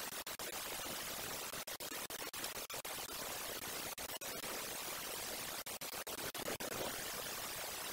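Steady static hiss from a muffled outdoor camera microphone, broken by many brief dropouts.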